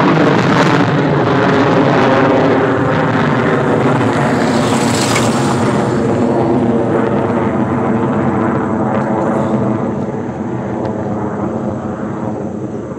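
F-35 Lightning II's Pratt & Whitney F135 jet engine noise as the fighter flies over. The loud engine sound carries a high hiss that peaks about five seconds in, then slowly fades over the last few seconds.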